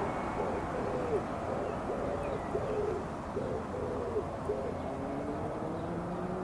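A pigeon cooing, a run of soft repeated hooting notes over steady outdoor background noise. About five seconds in, a low drawn-out tone comes in and rises slowly in pitch.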